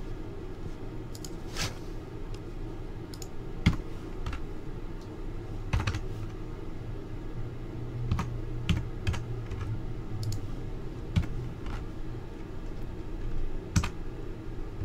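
Irregular, sparse keystrokes and clicks on a computer keyboard, over a steady low hum.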